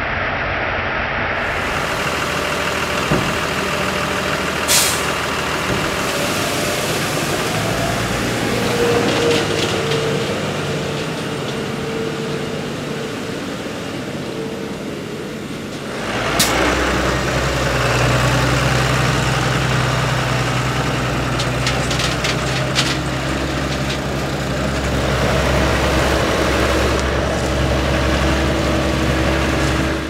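Barley pouring from a grain elevator spout onto a pile, with the elevator machinery running. About halfway through, this gives way to the steady low running of a Deutz-Fahr Agrotron 105 MK3 tractor hitched to a Fliegl TDK 130 tandem tipper trailer.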